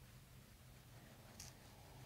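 Near silence: a faint steady low hum of room tone, with one brief soft scratch about one and a half seconds in, of fingertips rubbing through hair and skin at the base of the skull close to the microphone.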